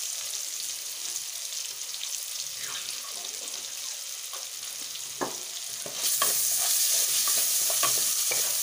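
Potato pieces sizzling in hot oil in a kadai, a steady hiss. About six seconds in the sizzle gets louder as a wooden spatula stirs them, with light scrapes and clicks against the pan.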